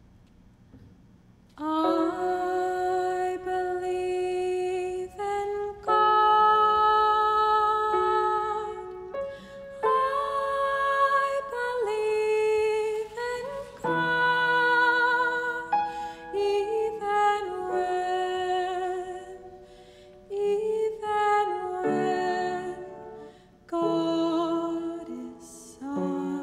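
A young woman singing a slow solo melody in held phrases with vibrato, with short breaks between phrases. It starts about a second and a half in, after near quiet.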